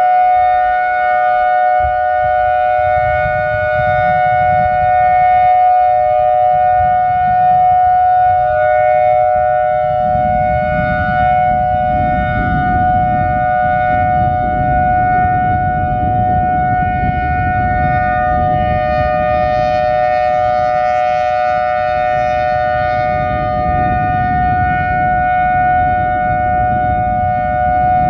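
Whelen Vortex R4 "Thunder" rotating outdoor warning siren sounding a steady alert: two held pitches together as one sustained chord, with no rise or fall. A low rumbling noise runs underneath from about ten seconds in.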